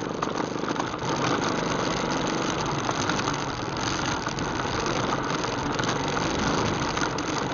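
ATV engine running steadily under way on a dirt trail, picking up slightly about a second in.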